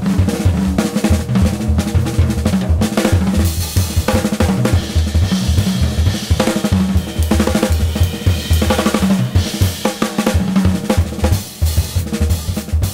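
Music with a busy drum kit beat: bass drum, snare and cymbals over a pitched bass line.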